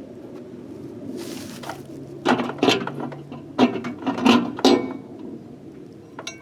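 Short rustle, then a run of sharp clacks and knocks as a small countertop microwave is opened and a Juul vape is handled and set inside.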